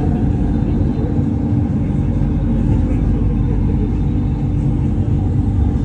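Running noise heard from inside a driverless elevated light-rail train: a steady low rumble of the train moving along the track, with a few faint steady tones above it.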